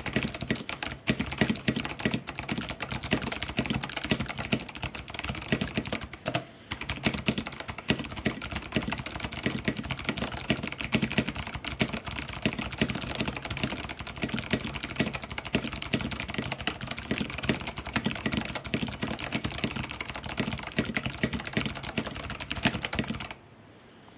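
Mechanical keyboard with clicky Kailh Box White switches and PBT keycaps being typed on quickly and continuously, a dense stream of key clicks. There is a brief pause about six and a half seconds in, and the typing stops near the end.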